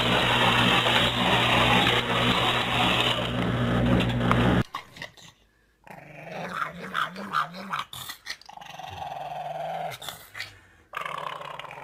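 A loud, steady whirring noise with a low hum, then cut off abruptly. After that, a pug growls in low, wavering pulses that rise and fall in pitch, with short breaks.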